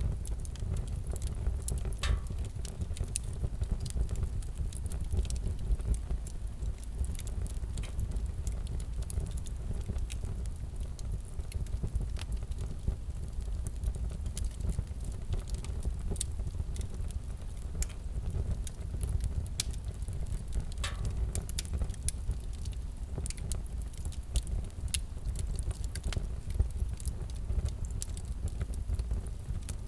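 Wood fire crackling in a fireplace: scattered sharp snaps over a steady low rumble of the flames, with a slightly longer pop about two seconds in and again about two-thirds of the way through.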